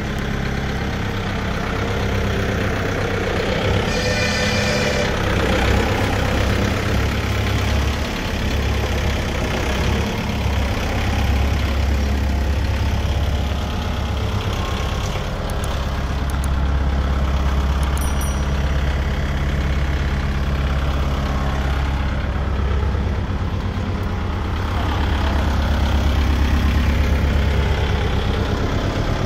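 Solis tractor's diesel engine idling steadily, a low even rumble. A brief higher-pitched noise sounds about four seconds in.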